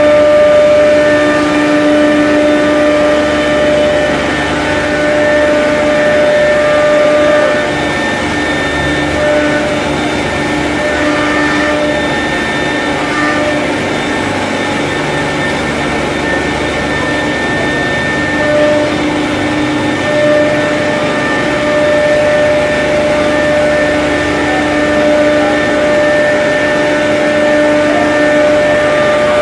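A CNC router panel cutting centre running while cutting a composite panel on its vacuum table: a loud, steady machine noise with several high whining tones. The tones weaken about eight seconds in and come back strongly about ten seconds later.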